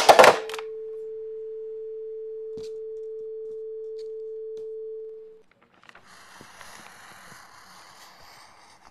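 A telephone handset clatters onto a tiled floor. The phone line's dial tone then sounds as one steady tone for about five seconds and fades out, and a faint scratchy hiss follows.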